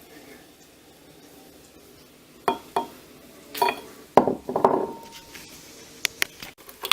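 Glass jar and kitchenware clinking and knocking as they are handled: quiet for the first couple of seconds, then a run of sharp clinks, one ringing briefly.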